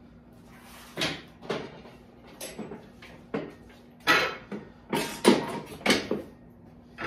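Knocks and short scrapes of a padded flat weight bench being lifted, moved and set down on a concrete floor. A few separate knocks come first, then a louder, busier run of clatter in the second half.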